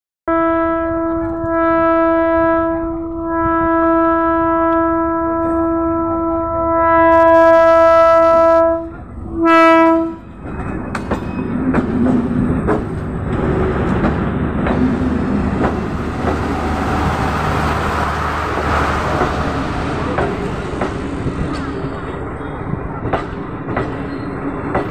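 Nepal Railways diesel multiple unit train sounding its horn in one long blast of about nine seconds that wavers a few times, then a short second blast. The train then passes close by, its running noise steady and its wheels clacking over the rail joints as the coaches go past.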